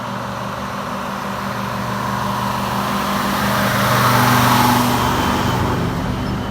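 Vintage truck's diesel engine running as it drives past, growing louder to a peak about four seconds in and then fading slightly.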